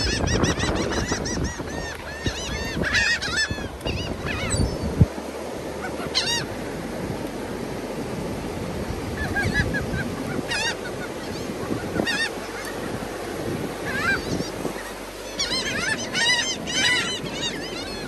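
A flock of gulls calling, with bursts of overlapping calls near the start, about three seconds in and again near the end, and single calls in between. There is one brief knock about five seconds in.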